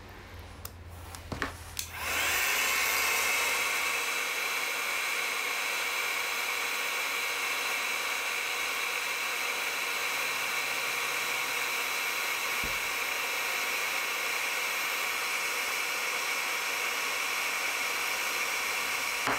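A few light clicks, then about two seconds in a heat gun switches on and blows steadily, a fan-driven rush of hot air with a steady whine. It is heating the label so its glue softens and it can be peeled off the pulley.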